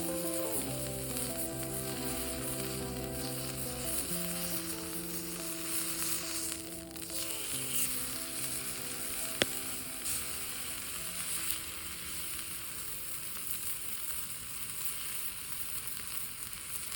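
Meat sizzling steadily on a small steel griddle plate over a campfire, with one sharp click about nine seconds in.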